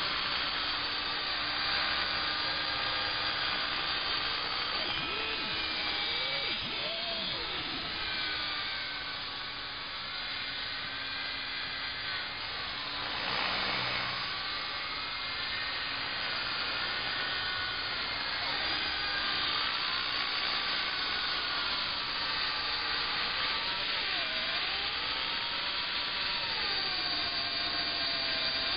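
Align T-Rex 500 electric RC helicopter in flight, its motor and rotor whine gliding up and down in pitch as the throttle changes. A brief rushing swell comes about halfway through.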